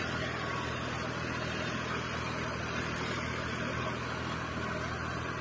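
Tractor diesel engine running at a steady pace as it pulls a 16-inch reversible mould-board plough through dry soil, with a constant hiss over the engine.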